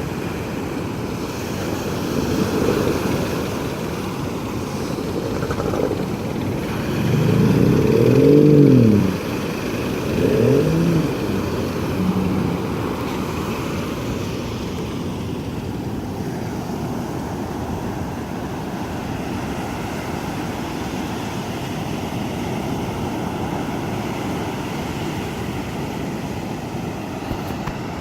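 A motor revs up and back down twice, the first rev longer and louder, over a steady wash of surf and wind noise.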